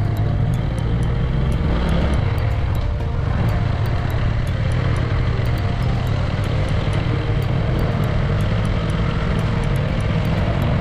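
Motorcycle engine running steadily at cruising speed, heard from the rider's helmet, with a constant rush of wind and road noise.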